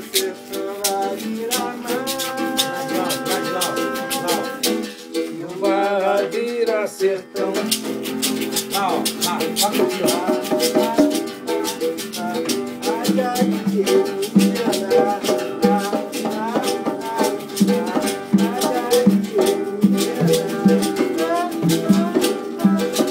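Live acoustic jam: a berimbau with a rattling shaker, an acoustic guitar strumming and hand-played congas, with voices singing along in the first part. The congas come in as regular low hits about halfway through.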